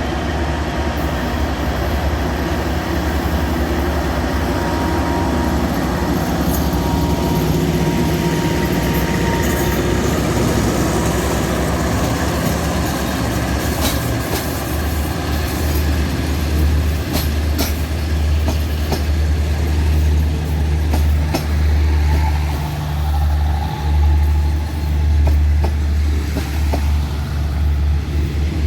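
Diesel-hauled passenger train running, a steady low drone with sharp clicks and knocks from the wheels and cars in the second half.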